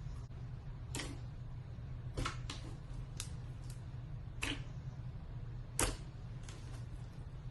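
A series of short, irregular clicks and taps, about eight over several seconds, with a louder one near the end, over a steady low hum.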